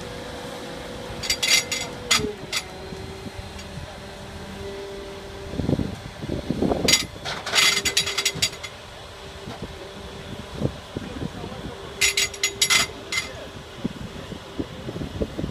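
ROPA Tiger 5 sugar beet harvester running, a steady hum that drops in pitch about two seconds in as the machine slows. Three bouts of sharp clattering come over it.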